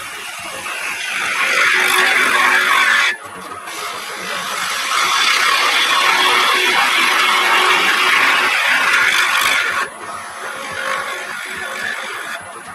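Turning gouge cutting the end grain of a spinning wooden candleholder blank on a wood lathe: a loud scraping hiss in two long cuts, each stopping suddenly as the tool comes off the wood, with quieter cutting between.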